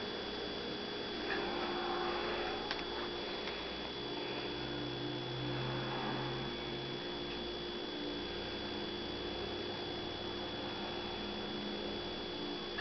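Steady electrical hum with a thin high whine over quiet room noise, and a few faint soft rustles around two and six seconds in.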